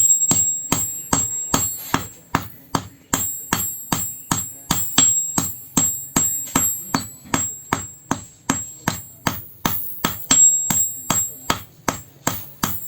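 Hand hammer striking the steel of an old vehicle spring in a steady run of blows, about three a second, each with a brief high metallic ring.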